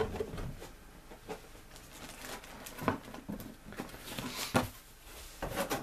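Cardboard model-kit box being opened by hand: the lid coming off and the inner card flap lifted, with scattered taps, scrapes and rustles of the card.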